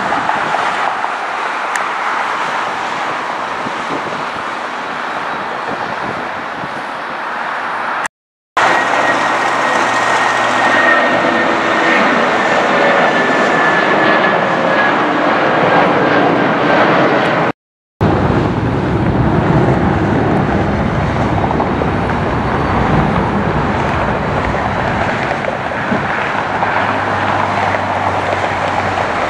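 Jet airliners roaring as they pass, in three clips with abrupt cuts between them. In the middle clip a high jet whine glides slowly down in pitch over the roar; the last clip has a deep low rumble.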